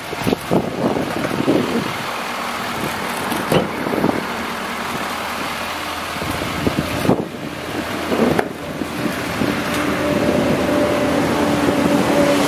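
A vehicle engine running steadily, with a few short knocks. A steady hum joins it about ten seconds in.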